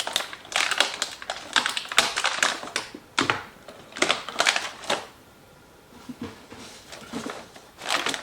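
Packaging being handled as a zip-tied controller is freed: rapid clicking and crackling of plastic and cardboard in bursts, with a short lull about five seconds in.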